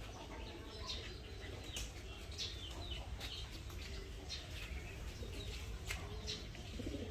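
Quiet outdoor ambience: birds chirping and calling here and there over a steady low rumble.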